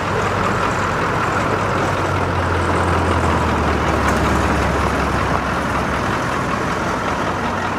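Tow truck's engine running steadily, with a deeper low hum swelling through the middle.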